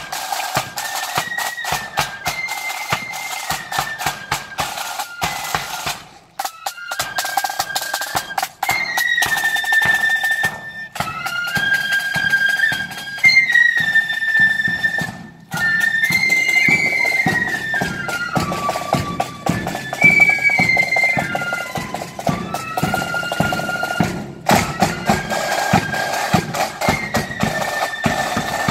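Marching flute band playing a tune: a section of transverse flutes carries the melody in unison while snare drums and a bass drum beat time.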